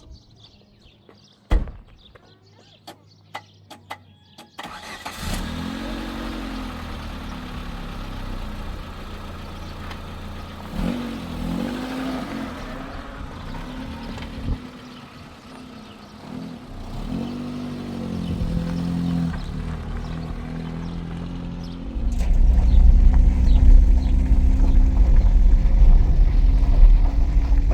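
A few sharp clicks, then a motor vehicle's engine starts about four and a half seconds in and is revved up and down several times. From about 22 seconds it runs louder and deeper.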